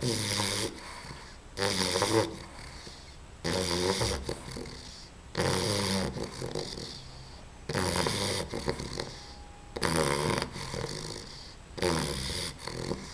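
English bulldog puppy snoring in her sleep, loud snores about every two seconds, seven in all, with quieter breaths between them.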